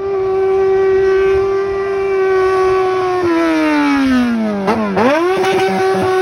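Yamaha XJ6 inline-four motorcycle engine with a straight-pipe exhaust and no muffler, revved and held at high rpm with a steady high-pitched note. About three seconds in the revs fall away, then about five seconds in the throttle is blipped and the engine snaps back up to the same high note.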